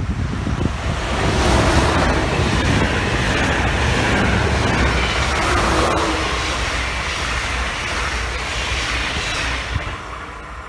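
A train passing on the line: a steady loud rush of wheels on rails, with faint tones that drop in pitch as it goes by, easing off near the end.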